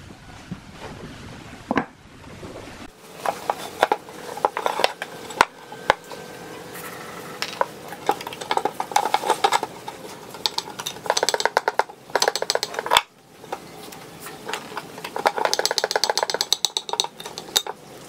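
Hand tools on an old, rusted ceiling fan motor: a spanner on a rusted nut, then pliers on the metal housing, clinking and scraping metal on metal. The clinks come in bursts of rapid clicks.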